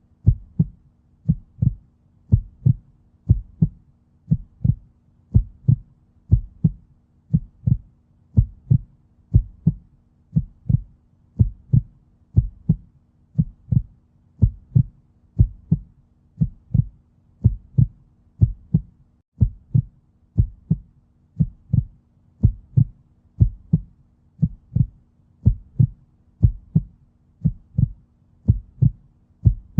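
Human heartbeat, a steady lub-dub: each beat is a pair of low thuds, repeating evenly at a little more than one beat a second.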